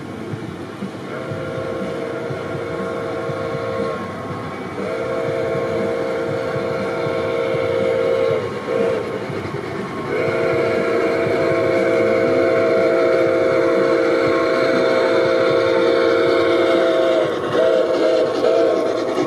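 A G-scale model steam locomotive's sound system blowing a chime steam whistle: long, long, short, long (the grade-crossing signal), then a short toot near the end. Under the whistle, the train's running noise on the track grows louder as it approaches.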